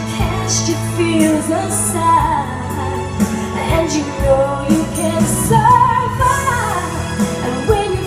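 A woman singing into a microphone over backing music, her voice gliding through a sustained melody above a steady bass line and beat.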